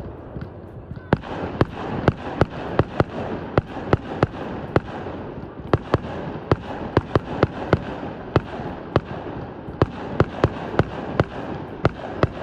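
Fireworks display: a rapid, irregular run of sharp bangs, two or three a second, beginning about a second in, with a steady hiss between them.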